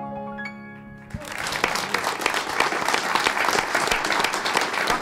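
The song's last held notes ring out for about a second, then a live audience breaks into applause and keeps clapping.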